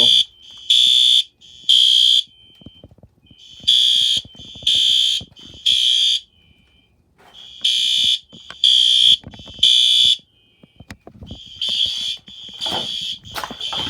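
System Sensor SpectrAlert Advance fire alarm horn sounding the temporal-three evacuation signal: three high-pitched half-second blasts, a pause, then three more, repeating. A fainter steady alarm tone from another horn fills the gaps between groups.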